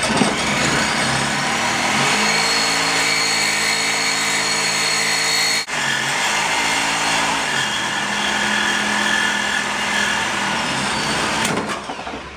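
Handheld electric saw cutting into a part clamped to a bench, running steadily with a high whine. It stops for a moment about halfway, starts again, and cuts off near the end. The blade is struggling with the cut and overheating.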